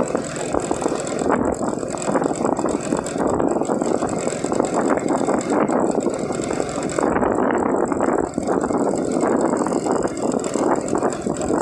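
Small motor scooter ridden at low speed: its engine runs steadily under a rough, even rush of wind on the microphone.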